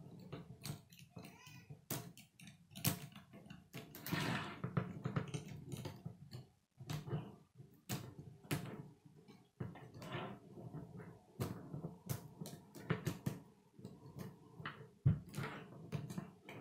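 K'nex plastic rods and connectors clicking and rattling as they are snapped together by hand: many small sharp clicks at irregular intervals, with a longer clattering rattle about four seconds in and another near the end.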